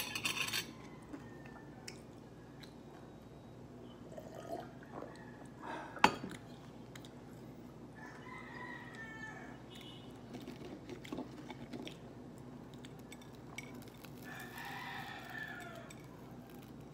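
A crunchy bite into fried chicken at the start, then a single sharp clack of metal chopsticks set down on a ceramic plate about six seconds in. In the background a rooster crows twice, each crow about a second and a half long, once around halfway and once near the end.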